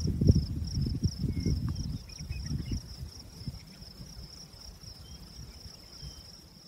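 Nature ambience of insects chirping in a fast, steady pulsing trill. Low irregular rumbling fills the first two seconds and dies away, and the whole recording fades out toward the end.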